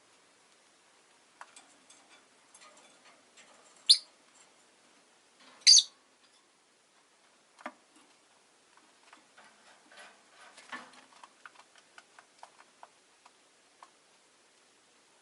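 Rosy-faced lovebirds calling: two loud, sharp shrieks about four and six seconds in, then a softer call and a run of quick small chirps and clicks.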